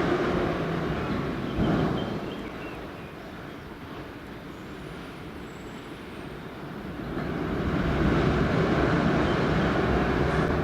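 An ICE high-speed train running through the station: a broad rushing rolling noise with a short loud burst about two seconds in, easing off, then swelling again from about seven seconds in and staying loud.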